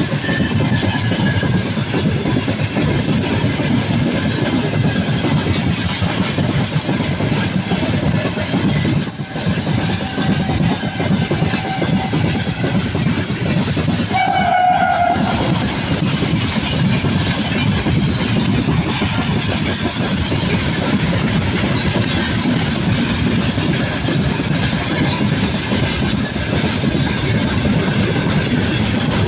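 Freight train of open-top gondola wagons rolling past close by: a steady rumble and wheel clatter over the rail joints. About halfway through, a short horn blast sounds for about a second.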